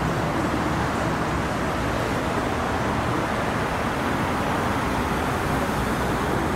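Steady road-traffic noise: a constant rumble and hiss of cars on the street, with no single event standing out.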